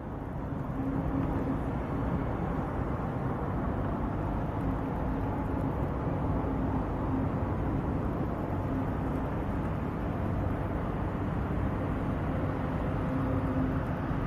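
Steady outdoor background noise: a low rumble with a steady hum running through it.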